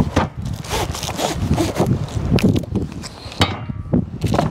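Workbench rails and their packaging being handled: irregular rustling, scraping and knocks, with one sharp knock about three and a half seconds in.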